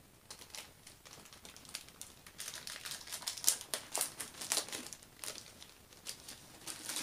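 Clear plastic wrapping crinkling and rustling as a rolled diamond painting canvas is handled and unwrapped. The crinkling is light at first and grows busier and louder after a couple of seconds.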